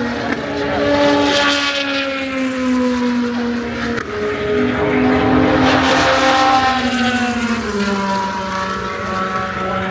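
Race car engines running at speed on the track, with two cars swelling past about a second and a half in and again around six seconds in, over a steady drone of other engines.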